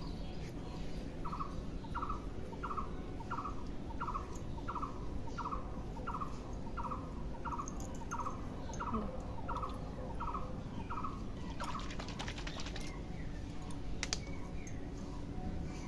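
A bird calling one short note over and over, evenly about every two-thirds of a second, for some ten seconds. Near the end come a quick run of crackling clicks and one sharp click.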